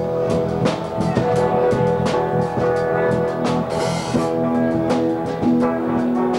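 A rock band playing live: drum kit hits and cymbals over sustained held notes and bass guitar, with a cymbal crash about four seconds in.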